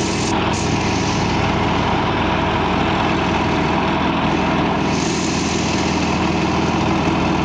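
Yak-52's nine-cylinder M-14P radial engine running steadily in flight, heard from inside the cockpit as a loud, even drone.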